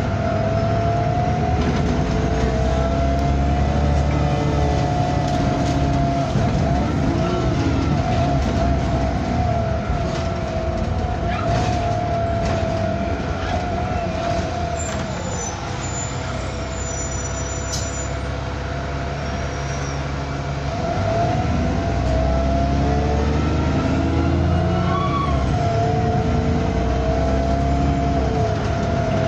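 Bus 27244 under way, its engine and drivetrain running with a low drone and a wavering high whine, the weird noises this bus is known for. The whine sinks a little and quietens through the middle, then picks up and gets louder again about two-thirds of the way through.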